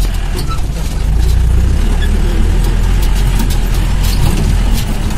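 Jeep engine running low and steady, heard from inside the cab, with repeated knocks and rattles from the body as it jolts over a rough dirt track.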